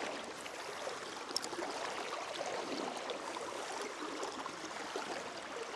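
A small river's water running steadily, with a few faint clicks.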